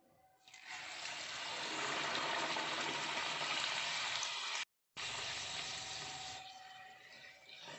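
A puri deep-frying in hot oil in a kadhai: the oil sizzles up loudly about half a second in as the dough takes the heat, and keeps up a steady hiss. The sizzle breaks off briefly about halfway, then resumes and dips somewhat near the end.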